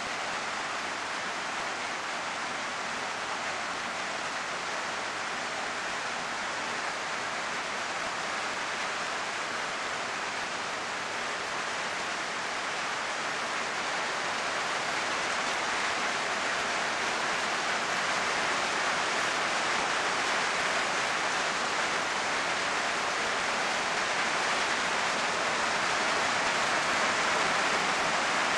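Heavy downpour: the steady hiss of hard rain, growing gradually louder in the second half.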